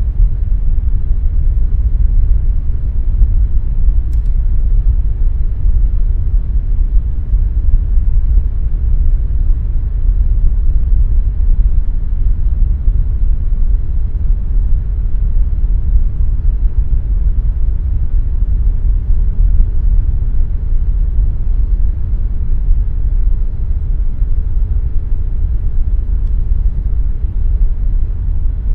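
Air conditioner running steadily: an even, deep whooshing rumble with a faint steady hum.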